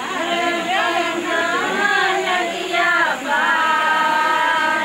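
Voices singing a wavering melody with long held notes, strongest in the second half.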